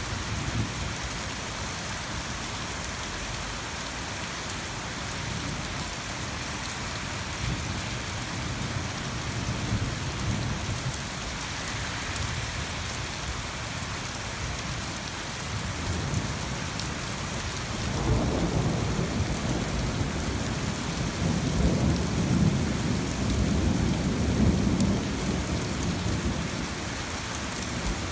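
Steady rain falling, with rolling thunder rumbling low underneath. A longer, louder roll of thunder builds about two-thirds of the way through and rumbles on for several seconds.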